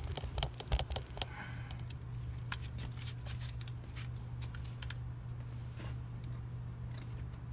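Light clicks and taps of a flathead screwdriver worked against a rubber hose fitting, several sharp ones in the first second or so, then scattered faint ticks over a steady low hum.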